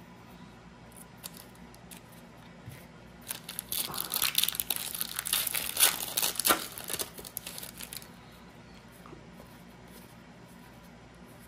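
Foil trading-card pack wrapper being torn open and crinkled by hand, a few seconds of crackling that starts about three seconds in and dies away after about five seconds.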